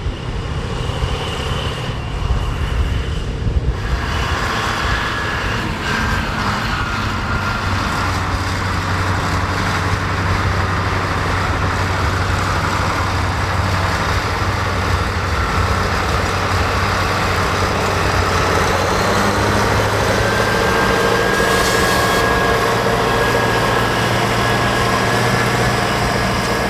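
John Deere tractor engine running steadily under load while ploughing, with a steady whine over the engine note; it grows slightly louder in the second half.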